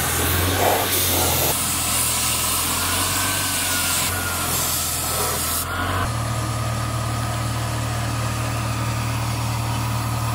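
Spray-painting rig running: a steady motor hum under the loud hiss of a paint spray gun. The sound changes abruptly about a second and a half in and again about six seconds in.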